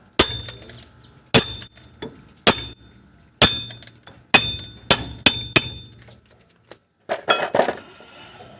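Hammer striking steel: about nine sharp, ringing metal blows at irregular intervals, then a quick flurry of clattering knocks near the end.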